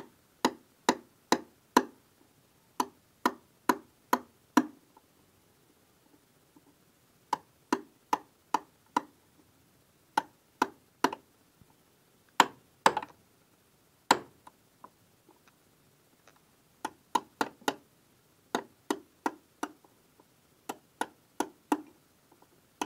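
Hammer striking a steel chisel to cut a notch in a wooden board: sharp metallic strikes in runs of three to five, about two or three a second, with short pauses between runs.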